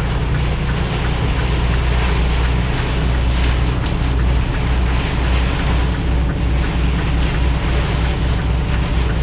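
Hail and heavy rain drumming on a truck's cab and windshield as a dense patter of small sharp hits, over the steady low drone of the truck's engine and road noise.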